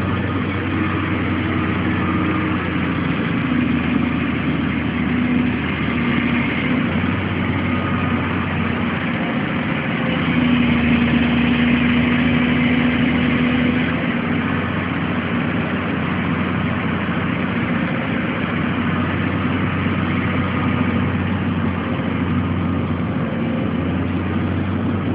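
Caterpillar 350L excavator's diesel engine running steadily, growing louder for a few seconds about ten seconds in.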